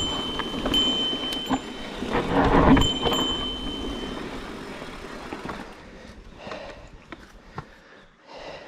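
Mountain bike running down a dirt trail: the frame and tyres rattle over the ground while a handlebar trail bell rings a high steady note, a bell the rider says no longer switches off. A heavy jolt comes about two and a half seconds in, the loudest moment, and the riding noise dies away after about five seconds.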